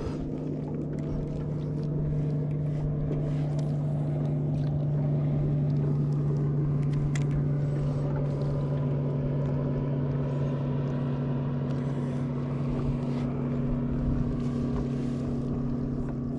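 Boat motor running steadily, a constant hum at one unchanging pitch.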